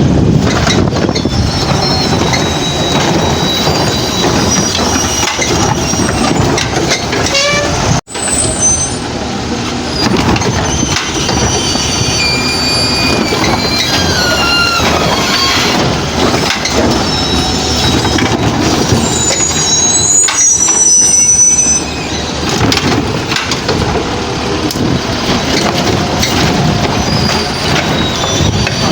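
Garbage truck running under load, its engine and hydraulics going steadily, with high squeals and whines that slide up and down in pitch throughout. The sound cuts out for an instant about eight seconds in.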